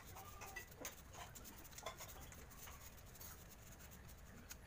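Faint, irregular scratching and clicking of a utility knife cutting and scoring a strip of packing foam.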